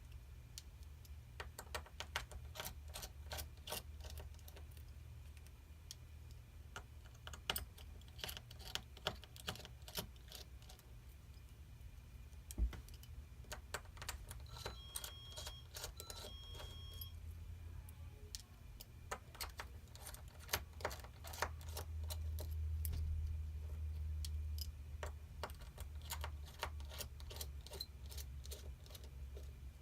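Small phone screws being backed out of a Samsung Galaxy S9's frame with a precision screwdriver: scattered light clicks and ticks of the bit and the tiny screws, with screws clinking as they are set down in a pile.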